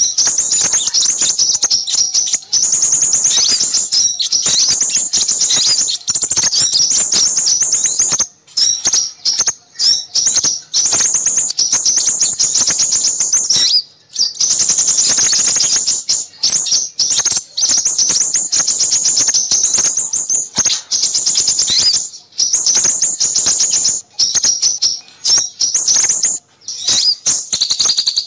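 Small birds twittering busily, many rapid high chirps and trills packed almost without a break, with brief pauses now and then. It is a bird-lure recording of noisy small birds, played to draw in crimson sunbirds.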